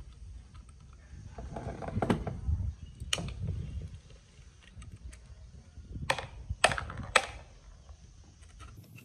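Hand work on motorbike parts: a handful of sharp clicks and knocks from parts and tools being handled, spaced irregularly over a low rumble.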